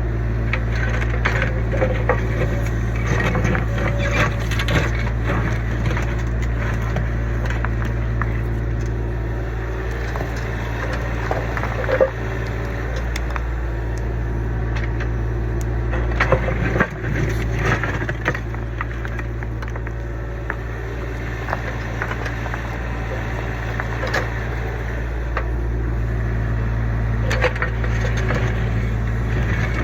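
Kubota U25 mini excavator's diesel engine running steadily under load while digging, with scattered knocks, cracks and scraping as the bucket breaks up and drags debris from the old footing; the sharpest cracks come around the middle.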